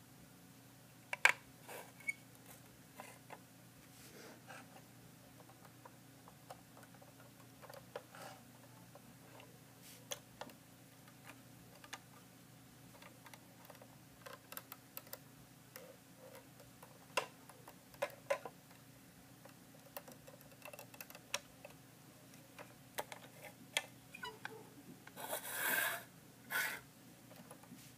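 Lego bricks clicking and knocking as the plastic model is handled, as scattered small clicks, with a longer rustling scrape about three-quarters of the way through.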